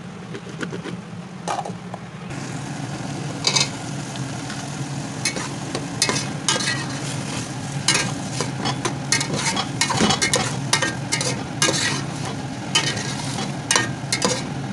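Potato pieces, peas and tomatoes frying in oil in a metal pot, sizzling more strongly from about two seconds in, while a metal slotted spoon stirs them with frequent clinks and scrapes against the pot. A steady low hum lies underneath.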